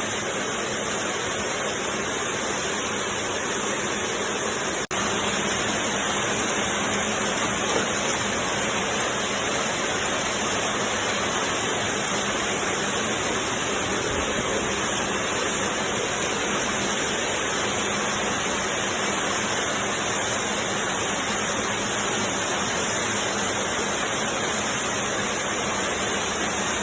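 Qiang Sheng 10-gauge automatic glove knitting machine running, making a dense, steady mechanical noise.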